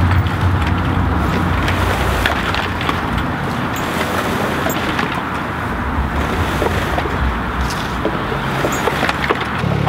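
Wooden chicken tractor being dragged across grass: a steady scraping, rustling noise with scattered knocks from the frame.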